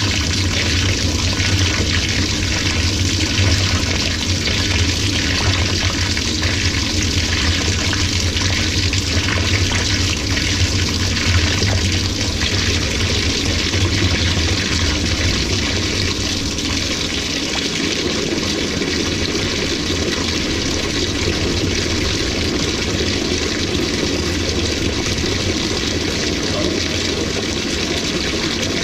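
LG 18 kg top-load washing machine filling, water pouring steadily into the drum, with a low hum that drops away about halfway through.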